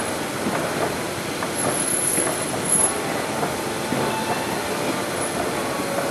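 A long escalator running downward, its steps and drive giving a steady clattering rattle with brief high squeals about two seconds in.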